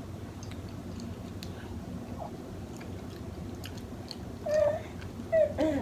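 Chewing with scattered small clicks and cracks of snow crab being eaten, then, about four and a half seconds in, a baby's short high-pitched squealing vocal sounds, twice.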